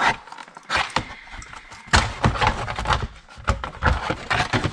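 Plastic case of an atomic clock being pried apart by hand: a run of sharp plastic clicks and cracks with handling knocks, sparse at first and then dense from about two seconds in as the case halves come apart.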